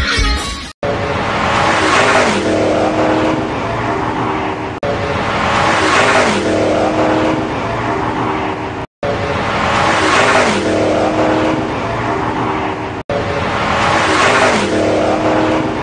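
A car engine revving as the car passes close, swelling and then dropping in pitch. The same pass is heard four times over in a loop, with a sharp cut between each.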